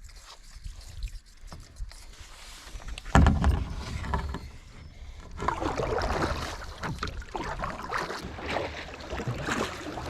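Kayak sounds on calm water: splashing and knocks against the hull, with a loud low thump about three seconds in.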